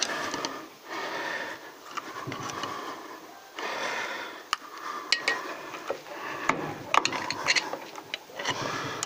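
A tool scraping and prying at rubbery potting compound stuck to the wires inside an electric vibrator motor's housing. It comes as uneven scraping strokes about a second long, with several sharp clicks.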